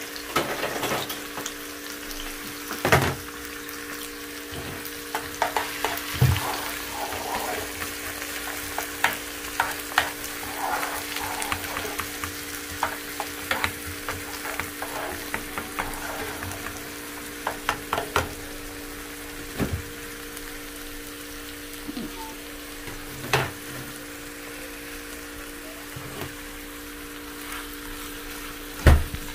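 Diced onion, tomato and green chile sizzling in a nonstick frying pan, stirred with a slotted spatula that scrapes and taps the pan at irregular moments, with a sharper knock near the end. A steady hum runs underneath.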